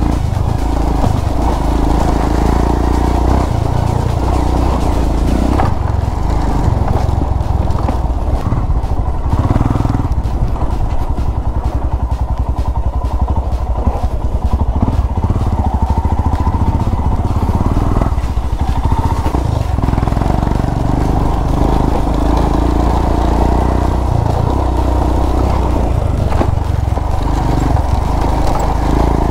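Royal Enfield Himalayan's single-cylinder engine running at varying throttle as the motorcycle is ridden over a rough dirt track.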